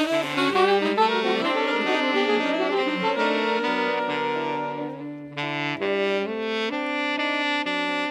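Jazz ensemble music with a saxophone carrying the melody in held notes over brass accompaniment.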